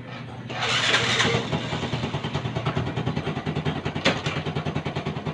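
Motorcycle engine starting: a short burst of noise as it catches about half a second in, then settling into a steady idle with an even pulse. A brief click sounds about four seconds in.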